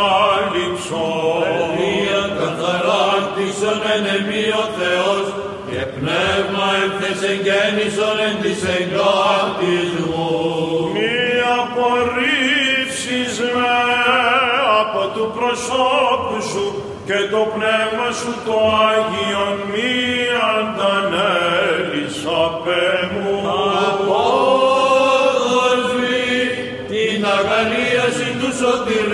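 Byzantine chant: male chanters singing a slow, ornamented melody in Greek, with a steady low held note under the melody.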